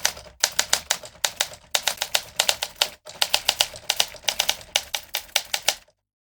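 Typewriter keys striking in quick runs of about six strokes a second, with brief pauses between runs, stopping just before the end.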